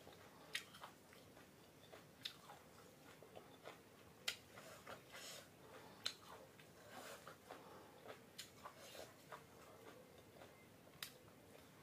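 Faint close-up chewing and biting, with scattered short wet mouth clicks, a few of them louder than the rest.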